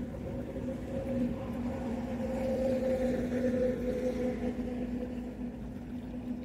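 A motor runs with a steady hum, and water sloshes and drips as a large mussel is lifted out of shallow water by hand.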